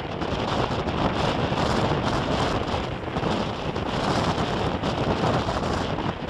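Strong storm wind blasting the microphone: a loud, dense rushing that surges and eases constantly.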